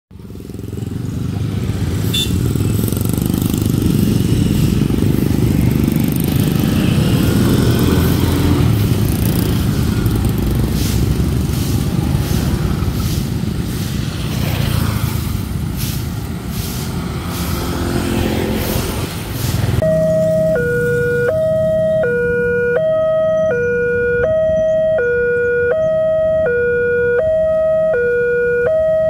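Road traffic with motorcycles passing by the crossing. About 20 seconds in, the level crossing's warning alarm starts from its horn loudspeaker: an electronic two-tone chime switching between a higher and a lower note about once a second, the signal that a train is coming and the barrier is closing.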